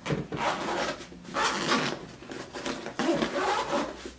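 Skate bag being handled, rustling and scraping in a series of short strokes about half a second apart.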